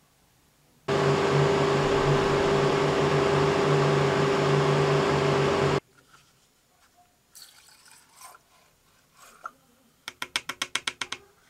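A loud, steady whirring drone with a fixed tone starts abruptly about a second in and cuts off abruptly after about five seconds. Then nitro fuel is squirted from a syringe into a small model-engine fuel tank: faint clicks and trickles, and near the end a quick run of about a dozen short spurts.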